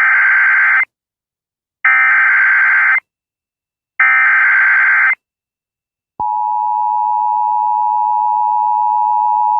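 Emergency Alert System broadcast: three one-second bursts of the SAME digital header, a harsh buzzing data warble with short gaps between them, then the steady two-tone EAS attention signal starts about six seconds in.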